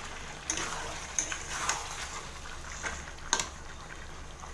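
A metal spatula stirring chicken pieces frying in thick masala in a metal kadai, scraping and knocking against the pan a few times over a low sizzle.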